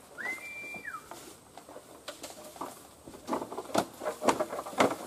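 Irregular rustling and crackling in dry bamboo and leaf litter, growing denser and louder over the last two seconds. A short whistled note, rising then falling, comes about half a second in.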